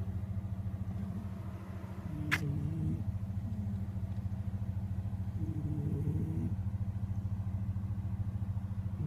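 A sleeping cat snoring loudly: a steady, rapidly pulsing low rumble. A sharp click comes a little over two seconds in.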